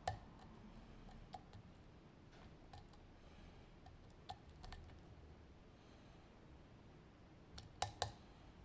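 Small metallic clicks of a lock pick working the pins of an ASSA Maximum+ Restricted pin-tumbler lock during single-pin picking: scattered light ticks, then a louder cluster of three or four clicks near the end.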